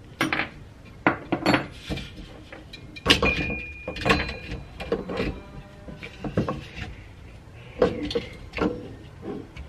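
Metal parts of a cryocooler cold head being handled and worked apart on a wooden table: irregular clinks and knocks of metal on metal and on wood, one with a short ring about three seconds in.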